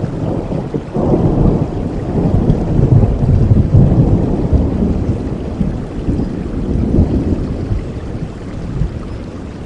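Thunder rolling over steady rain: a low rumble that breaks in sharply about a second in, swells, then slowly fades away.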